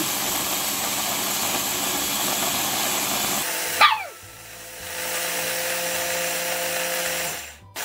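Ninja food chopper motor running steadily, grinding whole oats into flour. It stops for about a second, during which an Alaskan malamute gives a short falling howl. The chopper then runs again and stops just before the end.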